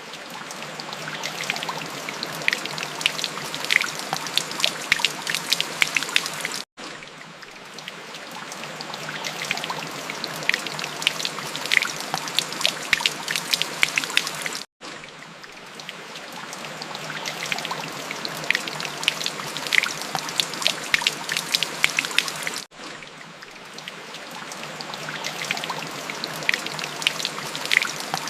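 Rain falling, with a dense patter of individual drops splashing. The same stretch of recording repeats about every eight seconds, with a brief cut to silence between repeats.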